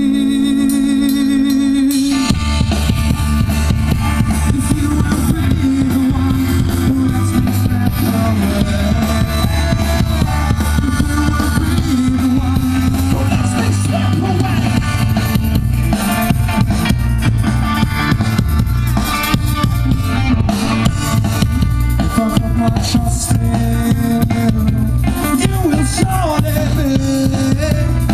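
Rock band playing electric guitars, bass and drum kit. A held chord opens, and about two seconds in the full band comes in with a steady beat and a sliding melody line over it.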